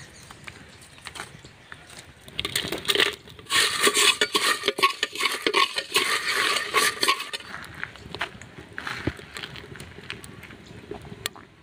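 Whole dry spices (coriander seeds, dried red chillies, cinnamon, bay leaves) poured into a cooking vessel, the seeds rattling and clattering in a dense run from about three to seven seconds in, with lighter scattered clicks before and after.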